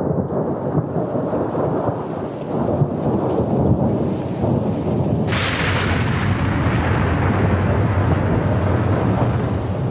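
Loud thunder-and-rain sound effect: a dense, steady rumble with a brighter hiss joining about five seconds in.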